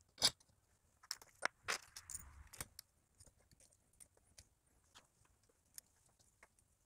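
Small metal hardware clicking and clinking as nuts, washers and a bearing are handled and fitted onto threaded-rod posts: one sharp click just after the start, a cluster of clicks between one and three seconds in, then fainter scattered ticks.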